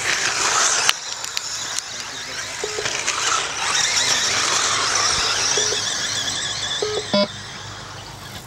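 Radio-controlled race cars running on a dirt track, motors giving a high wavering whine, with a few sharp knocks, the loudest near the end.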